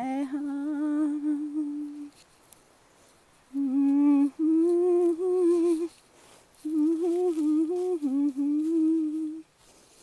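A woman humming a slow tune in three phrases of held, wavering notes, with short pauses between them.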